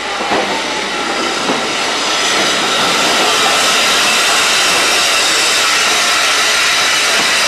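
Steam hissing loudly and steadily from the SECR P-class tank engine No. 323 'Bluebell' as it stands at the platform, building up over the first two seconds and then holding steady.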